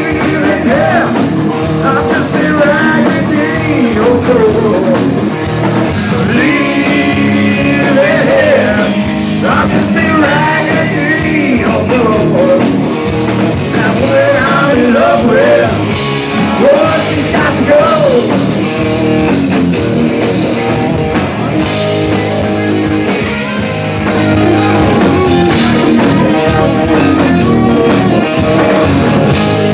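Rock band playing live at full volume: electric guitars, bass and drum kit, with a bending lead line over the top.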